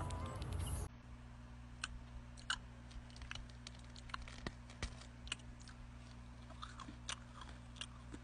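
Faint scattered crunches and crackles as chocolate sandwich cookies are broken and handled over a crinkly foil wrapper, over a low steady hum. A louder rushing noise cuts off suddenly about a second in.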